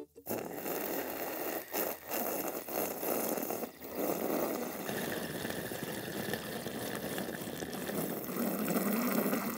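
Two people slurping soup from bowls in one long, slow, continuous slurp, a steady sucking of air and liquid broken briefly a few times.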